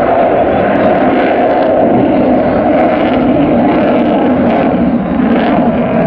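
Loud, steady jet noise from a Eurofighter EF-2000 Typhoon's twin EJ200 turbofan engines as the fighter flies its display overhead.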